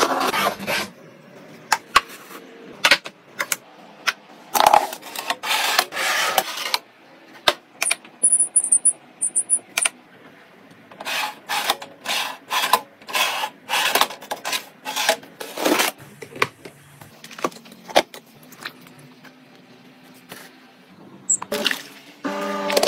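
Irregular clicks, clatters and knocks of plastic and metal household appliances being handled, such as a food dehydrator's wire tray being slid in and out. A few short, very high beeps come about eight seconds in, and a low steady hum runs for a few seconds near the end.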